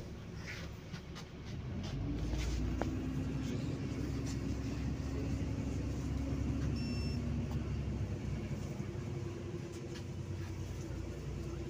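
Cabin sound of a city bus under way: a steady low engine and road rumble with a droning tone, growing louder about two seconds in. A single short beep sounds about halfway through.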